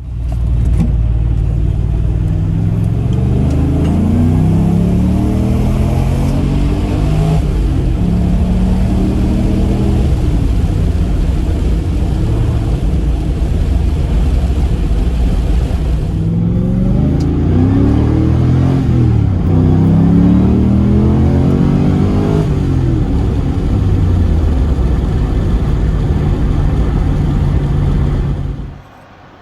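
Swapped-in LS6 V8 from a Corvette Z06, breathing through a Magnaflow muffler, accelerating hard. The engine note climbs in repeated pulls and drops back between them, as on upshifts through the gears.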